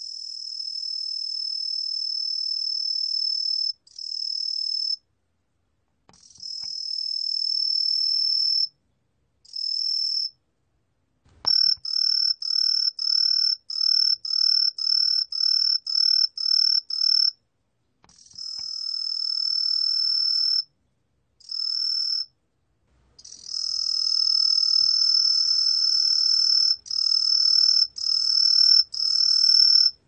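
Green pine tree cricket (청솔귀뚜라미, Truljalia hibinonis) singing at 18 °C. It gives a high, steady trill held for a few seconds at a time, broken by silent gaps, and in the middle a run of short chirps about two a second.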